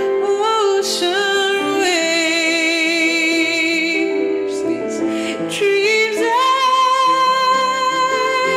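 A woman singing a slow melodic line with vibrato, over sustained accompaniment chords.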